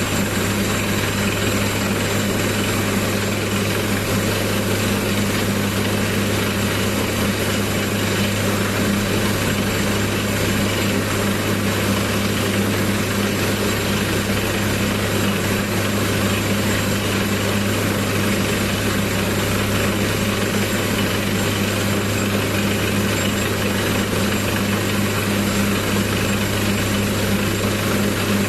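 Borewell drilling rig running steadily, a constant low engine hum under a wide, even mechanical noise.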